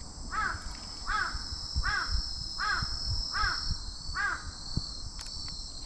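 Crow calling six times in a row, short arched caws evenly spaced about three-quarters of a second apart, in a soft, cute voice. Insects trill steadily underneath.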